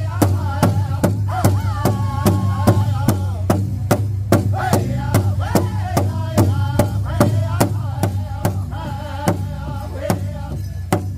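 Powwow drum group singing around a large shared drum. The drumsticks strike together about three times a second under high, wavering voices, with a steady low hum beneath.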